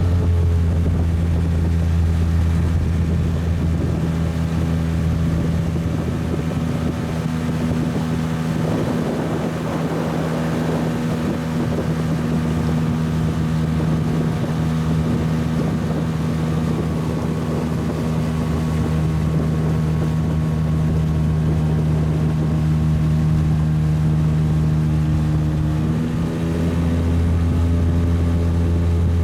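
Boat motor running steadily under way, with a steady low drone. Its note shifts slightly about 26 seconds in.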